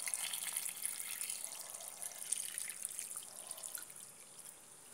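Water being poured into a glass bowl of sliced radishes, splashing and running steadily, then tapering off near the end.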